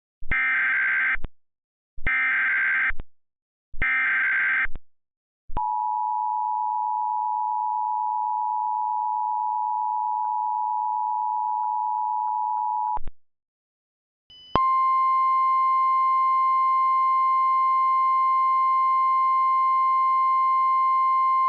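Emergency Alert System SAME header: three short bursts of warbling data tones, then the two-tone attention signal held steady for about seven seconds. After a brief gap, a single steady weather-radio alert tone starts and holds.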